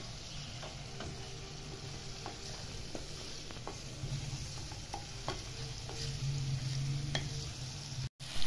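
Chicken pieces frying in oil and spices in a metal frying pan, sizzling steadily, while a wooden spatula stirs them, knocking and scraping against the pan about once or twice a second. The sound drops out briefly just before the end.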